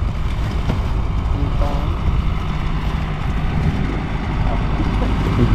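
Snowmobile engine running steadily, a low drone heard from the rider's seat.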